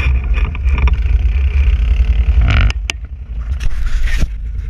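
ATV (quad bike) engine running as it rides over a rough, muddy trail, heard close up from a camera mounted on the machine. The loudness drops about two and a half seconds in, and several sharp knocks follow.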